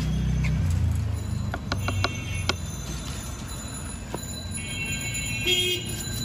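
Roadside traffic noise: a low engine rumble throughout, a few light clicks of plastic bottles being picked up and set down, and a short pitched horn sounding near the end.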